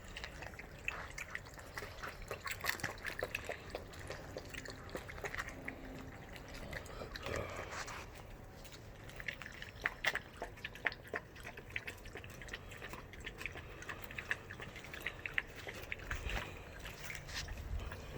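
Dogs with a newborn litter making wet mouth sounds: an irregular run of soft, wet smacking clicks.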